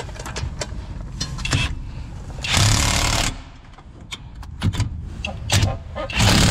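Cordless impact wrench running in the front hub bearing's mounting bolts from the back of the steering knuckle, in two short hammering bursts, about two and a half seconds in and again near the end. Clicks and clatter of tool handling between them.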